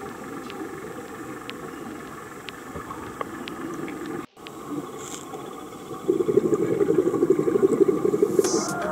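Underwater sound picked up through a camera housing: a steady low rumbling hiss with a few faint clicks, cut off for a moment about four seconds in. From about six seconds in, a diver's exhaled regulator bubbles come in as a much louder crackling rumble.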